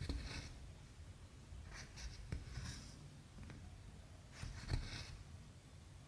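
Embroidery floss being drawn through 14-count cross-stitch canvas: a soft rasping swish about every two seconds, three times, each with a light tap as the needle passes through the fabric.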